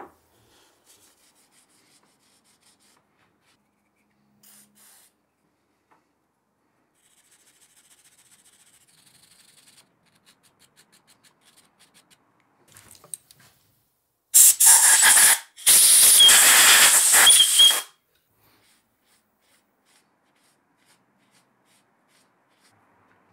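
Two hissing blasts from a spray can, one about a second long and then, after a short break, one about two seconds long. Before them comes faint scratching of a brush scrubbing the metal.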